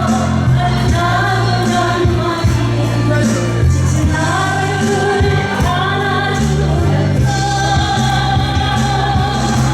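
A singer performing a Korean trot song with instrumental accompaniment: long held vocal notes that glide between pitches, over a steady bass line.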